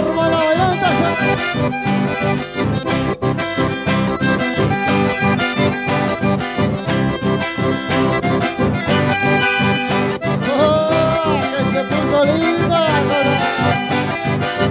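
Accordion-led Latin dance music with a steady beat, played loud for dancing.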